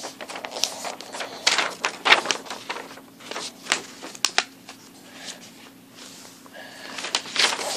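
A sheet of paper being folded and creased by hand into a paper airplane: crinkly rustles and sharp creasing clicks in several bursts, with a quieter stretch in the middle.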